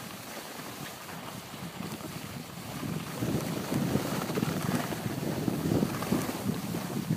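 Wind buffeting the microphone of a camera carried by a moving skier, gusting louder about three seconds in, over a steady hiss of skis sliding on snow.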